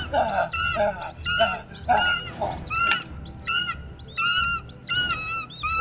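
Bird cries: a rapid series of short, arched, screeching calls, about three a second, with lower, hoarser calls mixed in during the first half.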